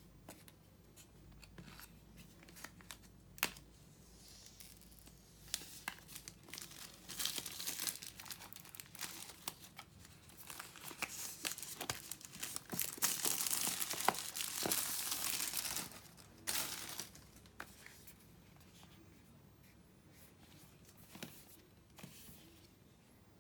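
Apple Watch retail box being unwrapped: its wrapping crinkling and tearing, loudest for several seconds in the middle, among light clicks and taps of the box being handled.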